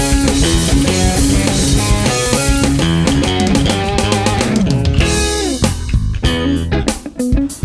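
Rock music with electric guitar, bass and drum kit, thinning out near the end.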